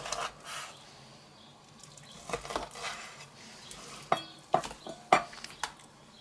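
Chef's knife cutting raw pork neck into cubes on a wooden cutting board: scattered knocks and scrapes of the blade on the board, with a few sharp taps in the second half.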